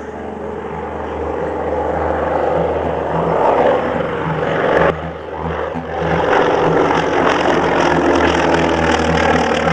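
Douglas DC-2's twin radial piston engines droning in a low fly-past, growing louder as the airliner approaches. The sound drops away suddenly about five seconds in, then comes back louder and stays loud.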